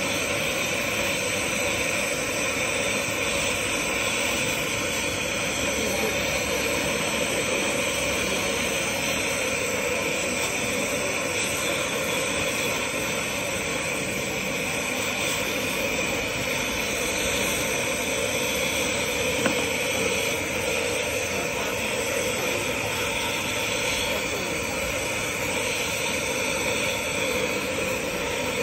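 Lampworking bench torch burning steadily with an even rushing hiss as glass rods are heated and worked in its flame.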